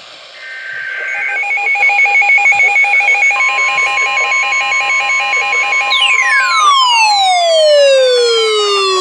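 Electronic emergency alert tones: a rapidly pulsing two-pitch beeping, joined about three seconds in by a steady single-pitch alarm tone like the Weather Radio warning alarm. About six seconds in, a loud tone sweeping steeply down in pitch, like a falling siren, comes in over them.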